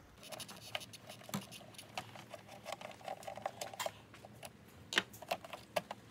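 Phillips-head screwdriver turning out a screw through a hole in a tow mirror's shattered lower glass: a run of quick small clicks and scratches as the tip grinds in the screw head and rubs the broken glass, with a few sharper clicks near the end.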